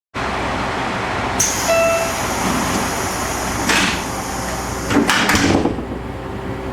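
Folding passenger door of a railway car working, with a short single-pitched warning beep about a second and a half in, then the door panels clattering and knocking as they move, over a steady rumble.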